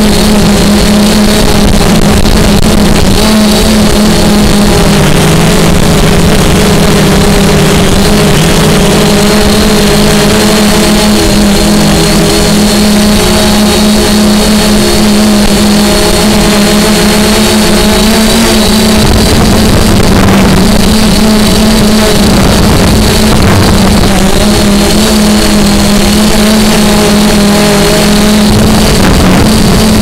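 Aosenma CG035 quadcopter's motors and propellers humming loudly and steadily, the pitch shifting slightly as the throttle works, picked up by a camera strapped to its own frame. Wind buffets the microphone.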